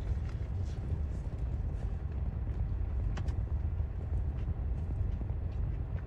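Steady low rumble of a car idling, heard from inside the cabin, with faint small clicks of someone chewing food close to the microphone.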